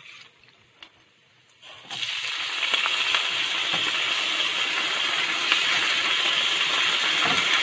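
Wet spring onions frying in hot cooking oil in a pan: the sizzle starts suddenly about two seconds in and then holds steady.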